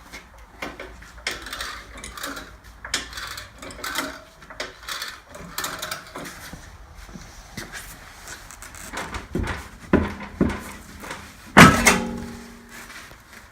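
Car jack being pumped to raise the car: a rhythmic series of short clicking strokes, about two a second. This is followed by a few heavier knocks and, near the end, one loud metallic clang that rings briefly.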